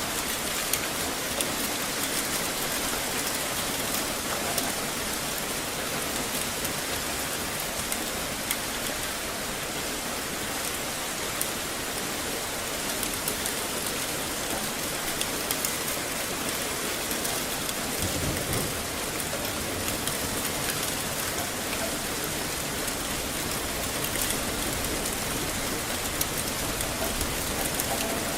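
Steady heavy rain falling on hard surfaces, with many small drop ticks and splashes. A brief low rumble comes about two-thirds of the way through.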